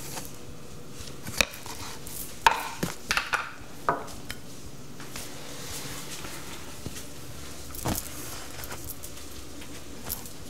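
Scattered kitchen clatter: dishes and utensils knocking and clinking against counters and cookware. A cluster of sharp knocks comes a few seconds in and another near the end, over a faint steady hum.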